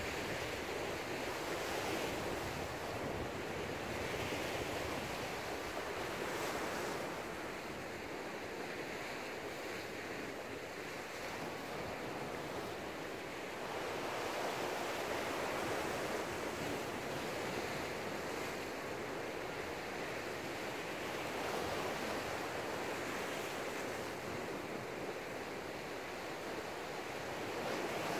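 Sea waves surging and washing back, swelling and easing every few seconds, with some wind on the microphone.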